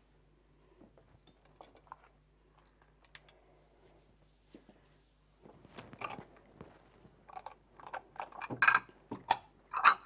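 Kitchenware being rummaged and handled: a few faint clicks at first, then from about halfway an irregular run of knocks and clatters, loudest near the end.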